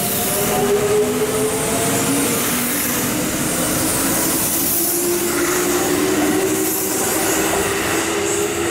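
Kintetsu electric train pulling out of the station, its traction motors whining in several slowly rising tones as it gathers speed, over the noise of wheels on the rails.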